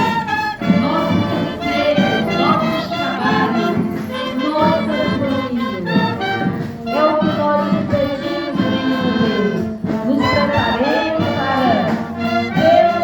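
Municipal brass band playing music, loud and continuous.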